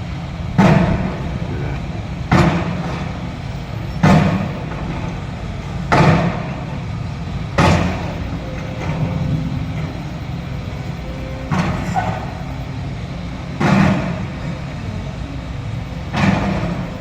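Heavy construction machine breaking up concrete: an engine runs steadily while heavy impacts land about every two seconds, with a longer pause around the middle.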